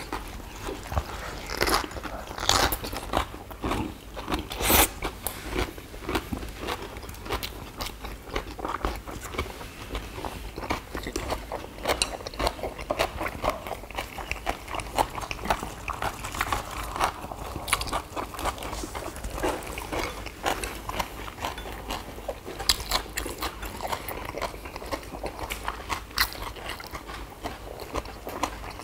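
Several people chewing and crunching mouthfuls of fresh leaf wraps (ssam) with duck bulgogi and raw onion: a run of many short, crisp crunches and bites, picked up close.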